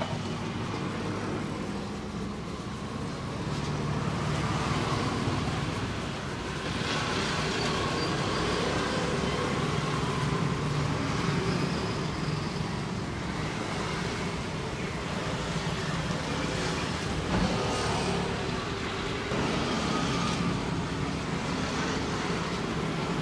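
Road traffic: a steady mix of motor-vehicle engines running and passing.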